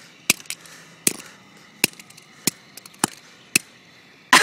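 Hammer repeatedly smashing a cell phone: about six sharp, separate blows, one every half second to second.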